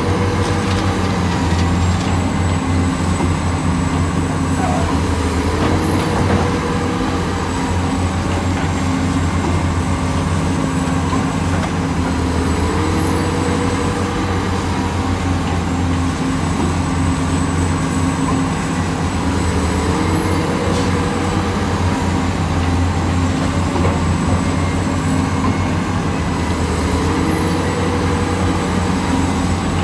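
Large hydraulic excavator's diesel engine running steadily under working load, with a whine that steps up in pitch about every seven seconds in a repeating dig, swing and dump cycle while loading a dump truck.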